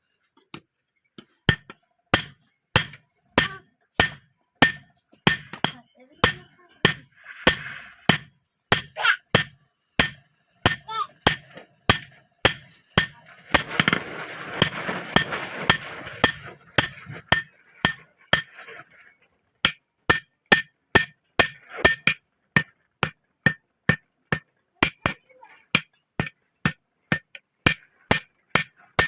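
A blacksmith's hammer striking a metal rod being forged into a sickle: sharp metallic blows, about two a second, in a steady working rhythm.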